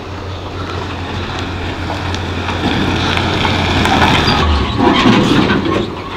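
Old pickup truck's engine running as it pulls in, a steady low hum that grows louder and eases off slightly near the end.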